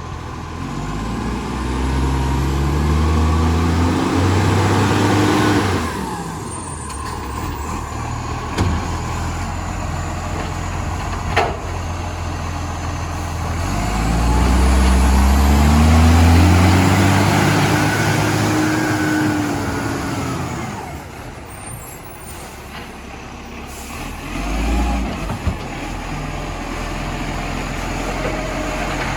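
Rubbish truck's diesel engine, which has an exhaust leak, revving up in steps twice, each time for several seconds, then settling back. A short sharp hiss comes about midway.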